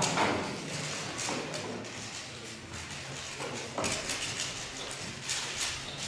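Scattered light clicks and clacks over a low murmur of voices.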